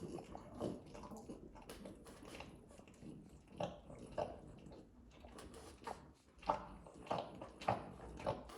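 French Bulldog licking himself: irregular wet licking and smacking strokes mixed with snorting breaths through his short snout, louder and closer together in the second half.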